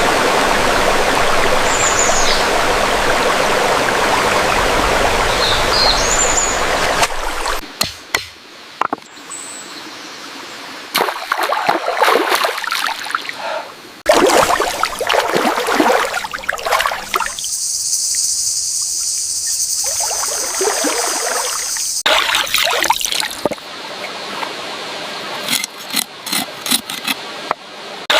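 Water running and splashing in a stream, in several short cuts: a steady rush first, then uneven splashing and trickling. A few short chirps early on, and a steady high buzz partway through.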